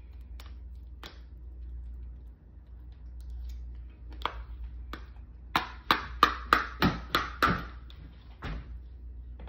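A metal spoon tapping and scraping in a small bowl a few times, then a mouthful of chicken salad being chewed: a quick run of about eight smacking clicks over two seconds. A steady low hum runs underneath.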